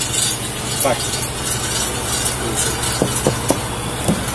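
Steady low hum and hiss of idling vehicles, with several short, sharp knocks in the last second and a half.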